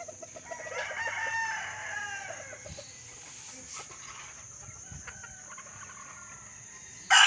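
A rooster crows once, a long call with a slowly falling pitch about a second in. A much louder crow starts right at the very end.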